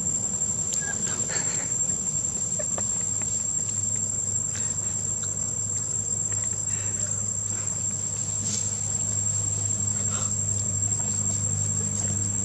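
Insects chirring steadily in the surrounding trees: one unbroken high-pitched drone, with a low steady hum underneath.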